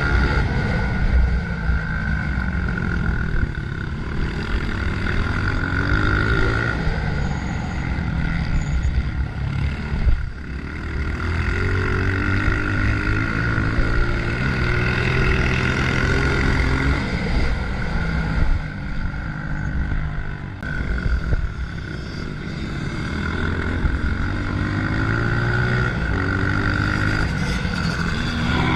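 Single-cylinder four-stroke engine of a Honda CRF125F dirt bike running hard, its revs climbing and dropping again and again as it is ridden.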